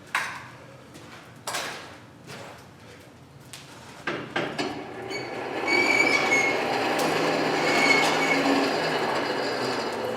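A few separate hammer blows on hot steel over the first four seconds, then a steady rushing roar of the forge fire's air blast, with a low hum and two brief high squeals in it.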